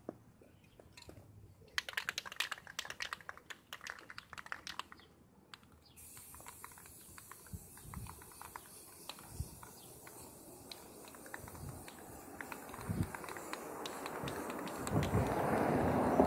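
Aerosol spray-paint can being shaken, its mixing ball rattling in quick clicks for about four seconds. A steady hiss follows and grows louder near the end.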